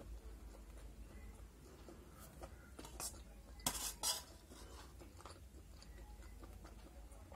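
Steel spoon scraping and clinking against a stainless steel plate while scooping up macaroni. The clinks come in a short cluster a little past the middle, the loudest of them about three and a half to four seconds in.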